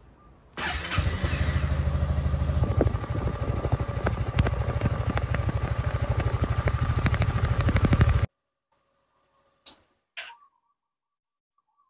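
Honda Forza 300 scooter's single-cylinder four-stroke engine starting about half a second in and idling with a quick even beat, on its first run after an oil and filter change. It stops abruptly, followed by two clicks of the ignition key switch.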